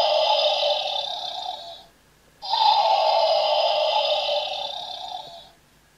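Electronic dinosaur roar from the try-me sound chip of a Zuru Smashers Mega Jurassic Light Up Dino egg, played through its small built-in speaker. The same recorded roar sounds twice, each about three seconds long and fading out: the first ends about two seconds in, and the second starts shortly after.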